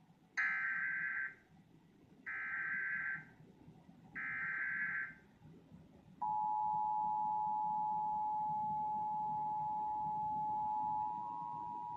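Emergency Alert System SAME header: three bursts of digital data tones, each about a second long and about two seconds apart, carrying the encoded Required Monthly Test alert. About six seconds in, the EAS two-tone attention signal (853 and 960 Hz sounded together) starts and holds steady.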